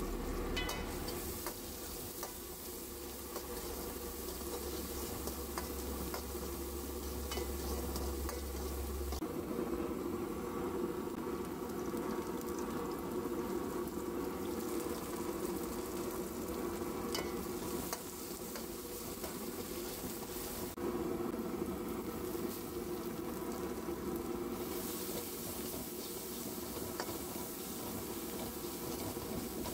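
Chopped shallots sizzling as they fry in oil in an aluminium kadai, with a metal spoon stirring and scraping against the pan now and then.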